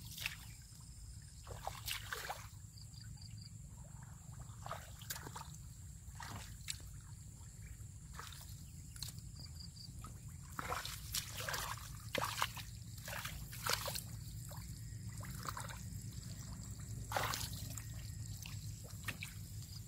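Muddy water sloshing and squelching as a person wades through a shallow pool and gropes in the mud with her hands, in irregular splashes that come thicker in the second half, over a steady low rumble.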